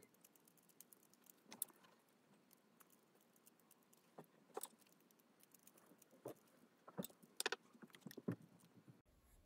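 Near silence broken by faint, scattered clicks and taps of a small screwdriver and loose plastic and metal parts on a model locomotive chassis as its screws are taken out, with a quicker run of clicks near the end.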